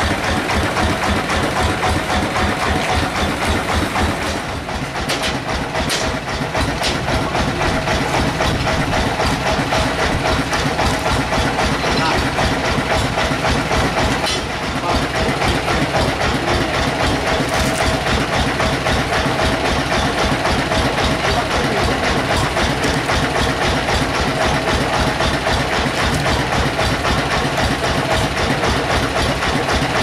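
Sawmill's engine running steadily at idle with a fast, even low pulsing.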